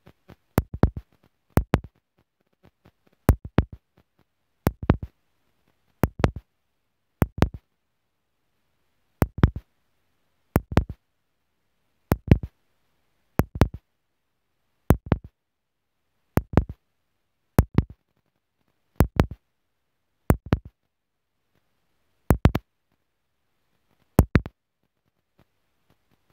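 Fireworks shells bursting in a long series, one sharp bang about every second and a half, each followed at once by a second crack or echo. Nothing else is heard between the bangs.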